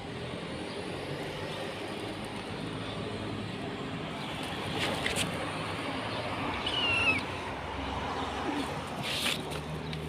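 Outdoor background with a steady low hum like distant traffic, a few light clicks, and one short high chirp that falls in pitch about seven seconds in.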